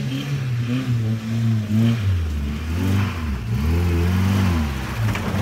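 Lifted 1983 Toyota Hilux's fuel-injected 22RE four-cylinder engine revving up and down under load as the truck crawls through deep muddy ruts, its pitch dipping low about two seconds in and again near the middle.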